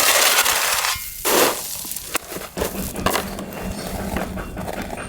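Rasping and crackling of tape and insulation board being handled and pressed into place, loudest in the first second and again briefly a little later. From about two and a half seconds in, an engine runs with a steady low hum beneath it.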